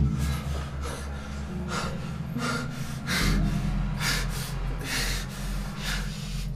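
A man breathing hard and fast in short gasps, about two to three a second, over a steady low hum.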